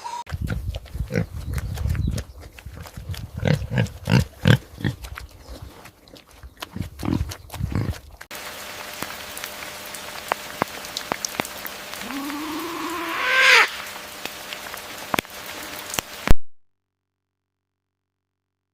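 Pig grunting in short, irregular bursts. After an abrupt cut, a quieter background carries one rising animal call, and the sound then stops dead.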